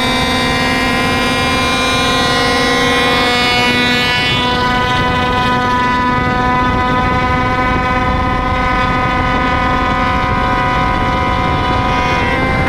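Kreidler 50cc two-stroke racing engine running at a high, steady pitch under racing load, with wind rush over the onboard microphone. The pitch dips slightly about three and a half seconds in.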